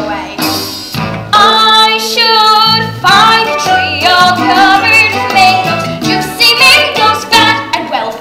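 Young voices singing a musical-theatre song with instrumental accompaniment.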